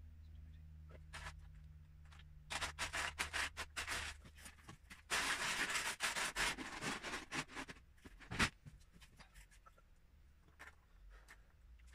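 Loose Lego bricks clattering in a plastic storage tub as hands rummage through them. A run of sharp clicks builds about five seconds in into a dense rattle, then thins to scattered clicks, one sharper than the rest.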